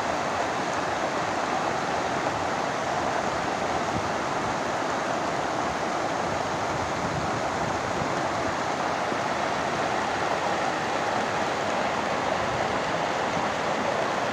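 Floodwater rushing in a steady, unbroken wash of noise.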